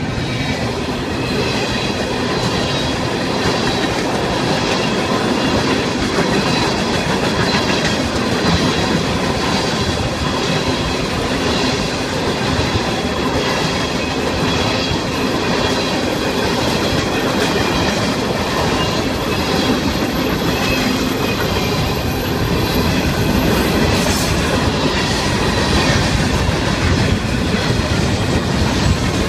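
Florida East Coast Railway freight train rolling past close by: a string of double-stack container cars, tank cars and open-top hoppers clattering over the rails in a steady rhythm, with a thin steady high-pitched tone over the rumble.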